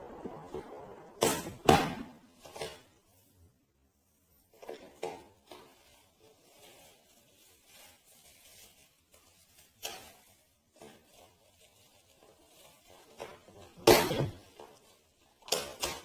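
Scattered knocks, clicks and rustles at irregular intervals, the loudest about fourteen seconds in, with quiet stretches between.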